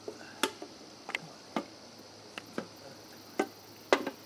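Dry twigs and a stick snapping and clicking as a branch is pushed through brush, about eight sharp irregular snaps in four seconds, the loudest near the end.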